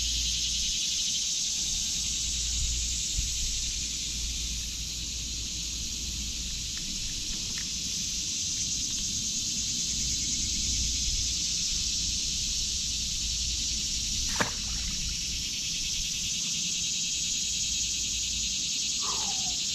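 Steady high-pitched chorus of summer insects, with one sharp click about two-thirds of the way through.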